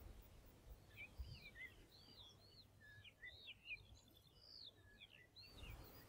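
Faint song of a small songbird: a run of quick notes that slide up and down in pitch, with a short buzzy trill in the middle, starting about a second in.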